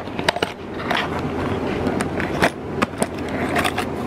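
A taped-up paper-and-cardboard package being handled and unwrapped: tape and paper rustling and crinkling, with many short sharp clicks and scrapes.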